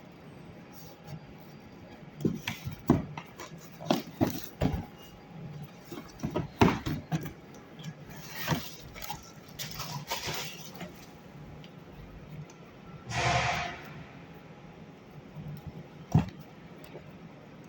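Handling noises from unboxing: a run of knocks and taps, then rustling, with one longer rustle about two-thirds of the way in and a single knock near the end.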